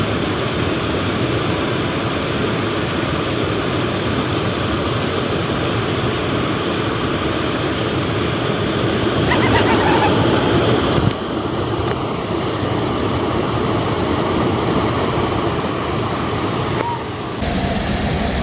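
Steady rushing of water pouring through the dam's sluice gates, a continuous even hiss that drops abruptly in level about 11 seconds in.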